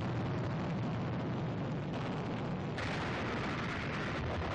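Newsreel battle sound of shell and mortar explosions blending into a continuous dense noise with a heavy low end. It turns brighter and harsher about three seconds in.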